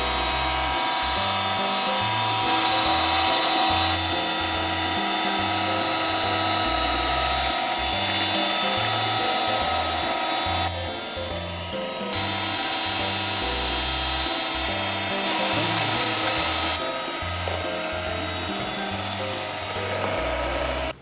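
Electric hand mixer running with a steady whine as its beaters whip a cream cheese filling, over background music with a rhythmic bass line. The mixer's whine shifts several times and dips briefly about halfway through.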